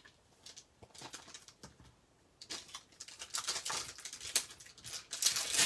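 Clear plastic stamp case handled and opened with a few light clicks, then the clear photopolymer stamp sheet crackling and crinkling as the stamps are handled and peeled. The crackling is loudest near the end.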